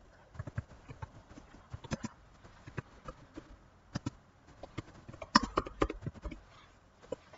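Irregular light taps and clicks, scattered through, with a denser and louder cluster about five and a half seconds in.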